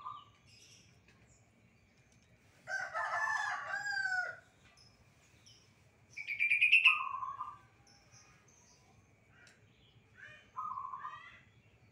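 A rooster crows once, a call of about a second and a half starting roughly three seconds in and falling at the end. Shorter bird calls follow; the loudest comes near the middle, and another comes near the end.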